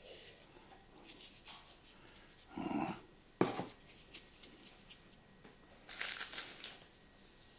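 Kitchen handling noises while a pot of okroshka is salted: rustling and scraping, a sharp knock about three and a half seconds in, and a brief hiss about six seconds in.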